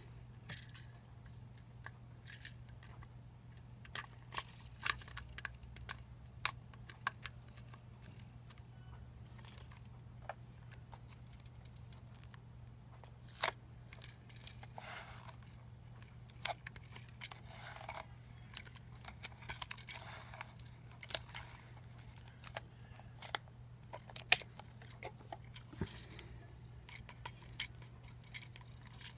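Small metal and plastic parts of a lightsaber replica clicking and clinking as it is handled and taken apart, with a few short scrapes, over a low steady hum.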